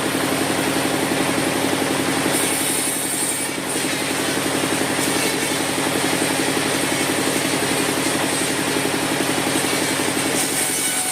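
A sawmill's engine running steadily, a constant hum with a fast, even pulse.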